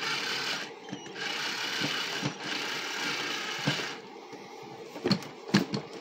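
Cordless drill whirring in three short bursts as it tries to drive a bent screw into the wall, followed by a few sharp knocks near the end, the loudest sounds.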